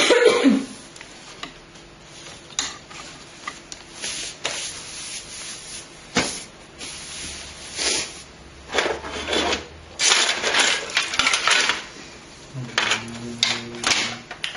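Small hard computer parts and packaging being handled: repeated clicks, knocks and light clattering, with stretches of rustling.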